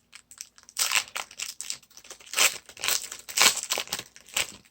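Plastic wrapper of a trading-card pack being torn open and crinkled by hand, in irregular rustling bursts.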